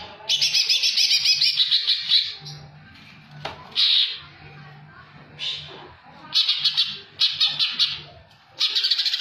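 Male green leafbird (cucak hijau) singing loud, fast rattling phrases of about seven notes a second, broken by a few single notes. Its keeper bills the song as filled with mimicked kingfisher (tengkek) calls.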